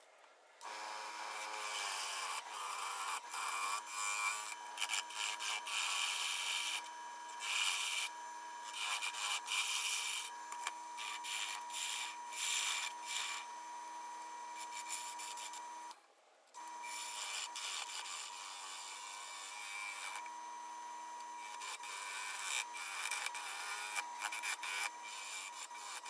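Bowl gouge cutting the outside of a wet, off-round half-log bowl blank spinning on a wood lathe: a rough shaving noise that swells and fades with each pass, over a steady whine from the lathe. The sound drops out briefly about sixteen seconds in.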